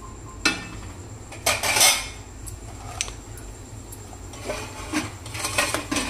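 A metal cooking utensil knocking and scraping against a pan: a few separate clinks and short scrapes, the longest and loudest about a second and a half in.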